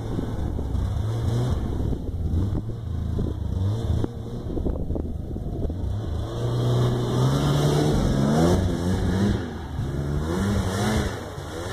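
Ski-Doo Tundra snowmobile engine revving as the machine rides past, its pitch climbing and loudest about eight seconds in, then dropping in pitch and fading near the end.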